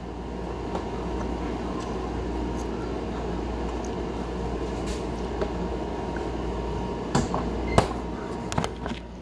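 Steady low hum of a running household appliance or fan, with a few sharp clicks and knocks near the end.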